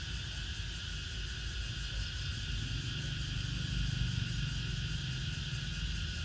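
Steady, unbroken chorus of insects, with a low hum swelling in the middle.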